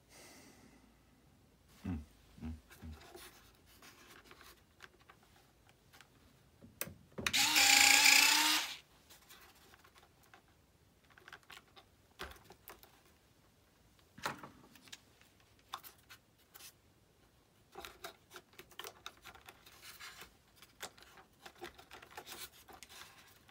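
A small electric motor whines once for about a second and a half. Scattered light knocks and clicks of hand work come before and after it.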